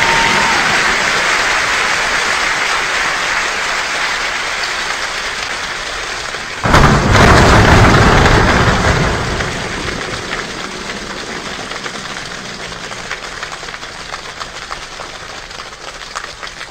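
Rain falling steadily and slowly easing off. About seven seconds in, a sudden loud clap of thunder rumbles for two or three seconds. Near the end the rain thins so that single drops ticking can be picked out.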